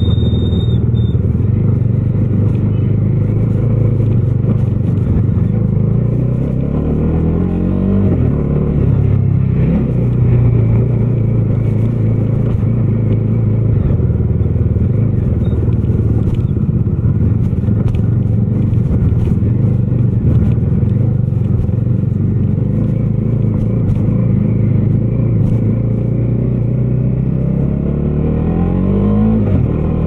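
Bajaj Dominar 250's single-cylinder engine running under way, its pitch climbing as the bike accelerates about seven seconds in and again near the end.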